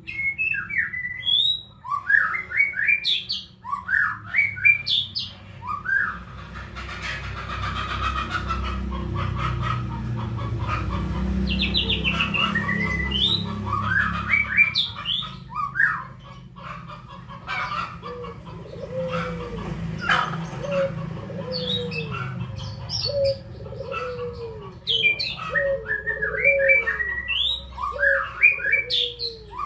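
Several birds chirping and singing, with many quick rising and falling chirps, and a lower call repeated about once a second in the second half. A low rumble swells and fades in the middle.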